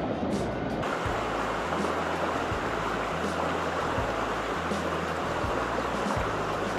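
Shallow creek water running over rocks in a riffle, a steady rush.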